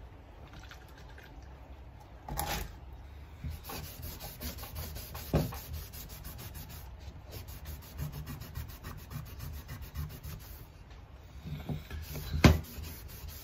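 A cloth scrubbing back and forth along a steel machete blade, wiping the freshly etched blade clean with white spirit. Three knocks break the rubbing, about two seconds in, about five seconds in, and a loudest one near the end.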